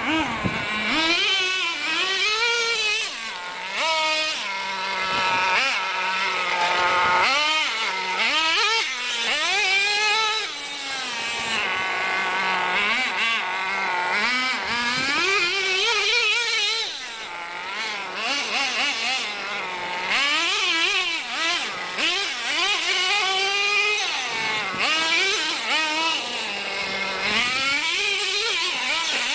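Tamiya TNX 5.2 radio-controlled truck's small two-stroke nitro engine revving up and down over and over as it is driven, a high whine that rises and falls with the throttle.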